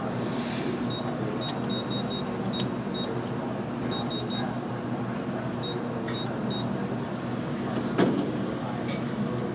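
Short high electronic beeps in quick groups over a steady machine hum, with one sharp knock about eight seconds in.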